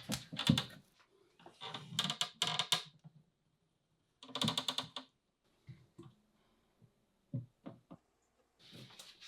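Hands at work on a build: three short bursts of rubbing and scraping in the first five seconds, then scattered light clicks and knocks.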